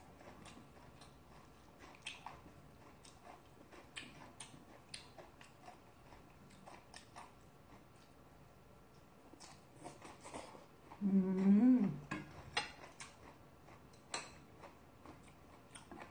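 Close-miked eating sounds: soft, irregular mouth clicks and smacks from chewing. About eleven seconds in, a short voiced sound, a second long, whose pitch holds, rises and then falls.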